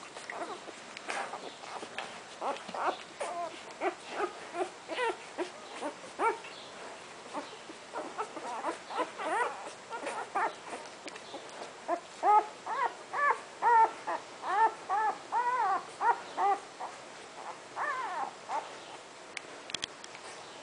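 Newborn golden retriever puppies squeaking and whimpering while they nurse: many short, high squeaks that rise and fall, coming thickest in a quick run a little past halfway.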